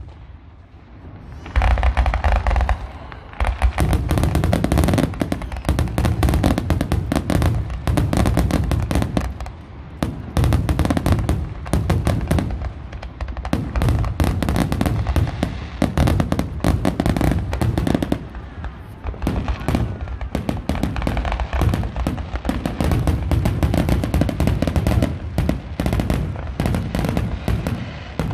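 Fireworks display going off in a dense, continuous barrage of bangs and crackles, starting about two seconds in after a short lull.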